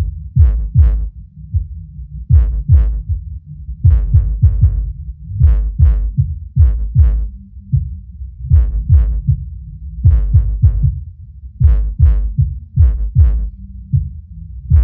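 AIYIMA 800x 8-inch subwoofer playing a bass-heavy music clip: short, punchy bass notes in small repeating groups, with an annoying buzzing on top of each note. The buzz is a defect of the sub, which the reviewer puts down to the cabinet, driver, amplifier or a combination of them.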